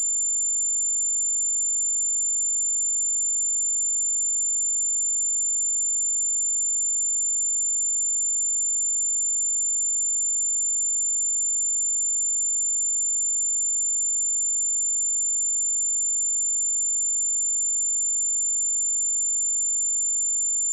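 A steady 7175 Hz sine-wave test tone, a single constant high-pitched pure tone for speaker and headphone testing.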